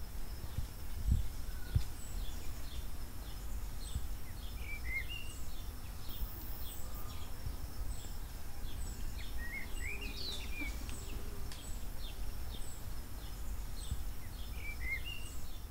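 Birds calling: short, high, falling chirps repeated about twice a second, and a lower run of chirps about every five seconds. Under them are a faint steady high insect drone and a low rumble, with two dull thumps about a second in.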